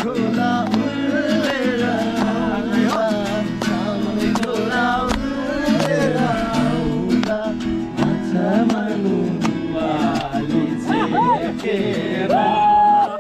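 A song with a voice singing over guitar accompaniment; the singer holds one long note near the end.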